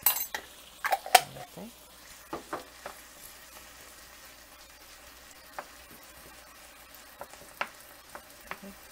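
Beef, diced onion and minced garlic sizzling in oil in a nonstick frying pan while a wooden spoon stirs them, knocking and scraping against the pan. The loudest knocks come in the first second or so, then sparser taps over a faint steady sizzle.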